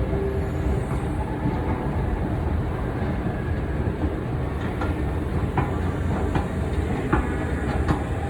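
A passenger train running along the track by the platform, a steady rumble with a few sharp clicks in the second half.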